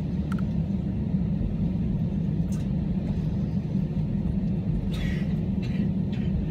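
Airliner cabin noise while taxiing: the steady low rumble of an Airbus A321-231's IAE V2533 turbofan engines at taxi idle.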